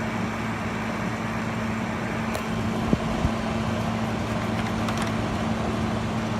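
GE 5010 BTU window air conditioner running and cooling: its fan blows a steady rush of air over a constant low hum. Two faint clicks about three seconds in.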